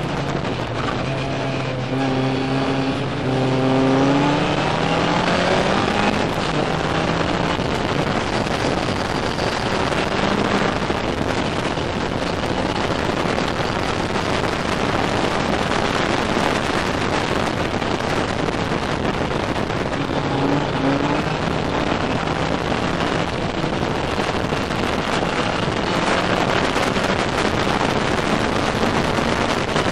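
Ginetta race car engine heard from its own open cockpit, pulling hard with revs climbing over the first few seconds, then largely buried under a steady rush of wind and road noise, with another brief rise in engine pitch about two-thirds of the way through.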